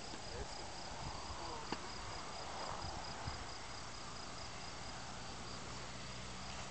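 Field insects chirping steadily in the grass, a thin high rapid pulsing, over a faint even hiss of open-air wind.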